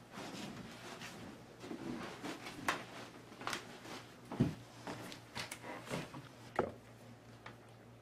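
Irregular knocks and clatter of a person moving about a small room, about half a dozen louder knocks spread unevenly, the loudest about halfway through, over a steady low hum.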